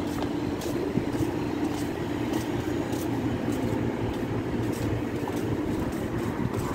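Steady low mechanical hum of street machinery, with footsteps on pavement about twice a second.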